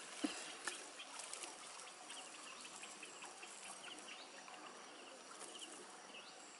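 Faint outdoor ambience with small birds chirping now and then, and a few light rustles and ticks as a wet cast net is handled.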